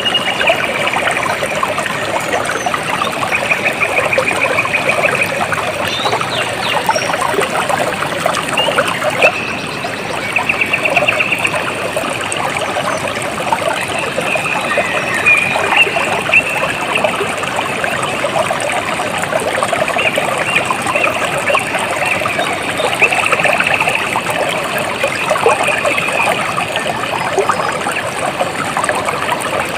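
Water trickling and splashing steadily. A high, rapid trill comes and goes several times over it.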